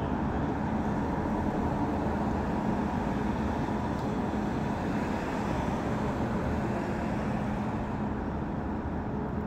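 Steady background rumble and hiss with a faint low hum, unchanging throughout.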